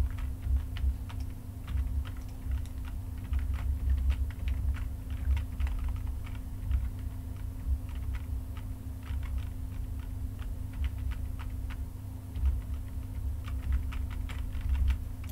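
Computer keyboard keys clicking in irregular runs, over a steady low hum.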